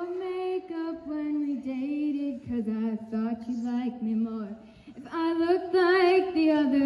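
A girl singing a solo, holding long notes with vibrato, with a short break for breath a little past halfway.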